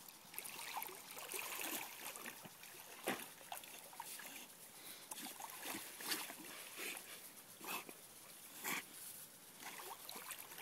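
Rottweiler swimming and paddling through shallow water, splashing irregularly, with a few sharper splashes.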